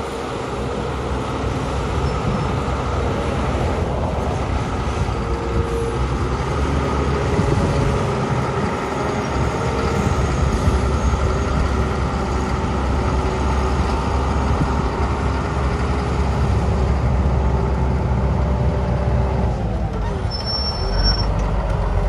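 Heavy diesel dump truck engine running steadily, its pitch dipping and rising again near the end.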